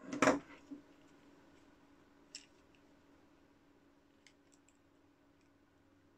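Handling clicks of a multimeter test lead's alligator clip being clipped onto a screwdriver's metal shaft: a short rustle at the start, a sharp click about two and a half seconds in, then a few faint clicks a couple of seconds later.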